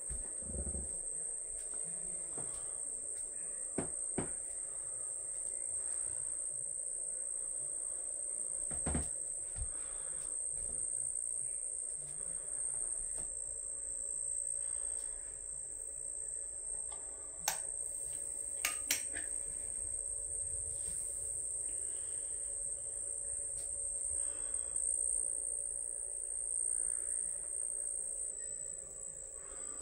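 Pet crickets in plastic tanks chirping in one steady, high-pitched, unbroken song. A few light knocks come through it, the sharpest two about halfway through.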